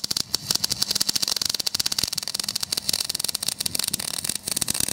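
MIG welder running a continuous weld on steel angle-iron bracket: a steady, dense crackle and sizzle of the arc with spatter.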